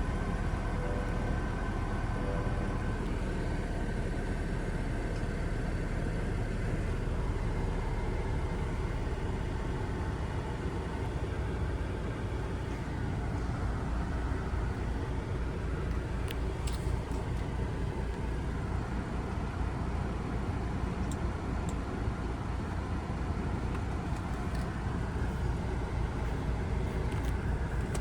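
Steady vehicle noise with a deep low rumble and a few faint clicks.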